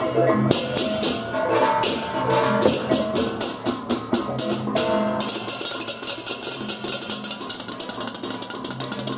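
Balinese baleganjur gamelan playing: ceng-ceng kopyak hand cymbals clashing in a fast, driving rhythm over kendang drum strokes and ringing small-gong tones. About five seconds in, the cymbal strokes become denser and faster.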